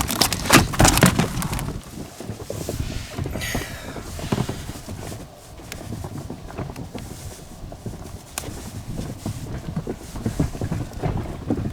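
A freshly landed common carp thrashing in an inflatable boat: a rapid run of knocks and slaps for about the first second and a half, then fainter scattered knocks over wind noise.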